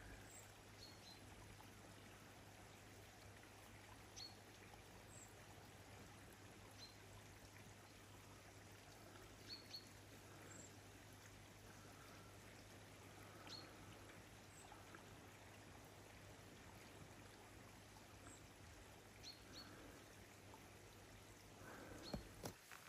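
Near silence: a faint steady hiss and low hum, with a few faint, short, high chirps scattered through.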